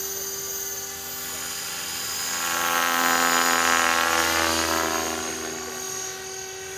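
Align T-Rex 500 ESP electric RC helicopter in flight: the high, steady whine of its motor and gears over the buzz of the spinning rotor blades. It swells louder for a couple of seconds in the middle, then eases off.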